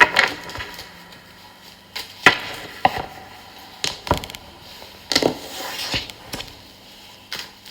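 Tarot cards being handled, shuffled and laid down on a surface: a string of irregular sharp taps and snaps.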